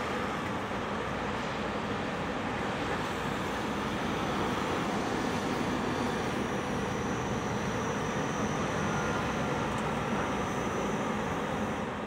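Claas Lexion 670 combine harvester running while harvesting: a steady, even engine and machinery drone, with a faint high whine coming in about halfway through.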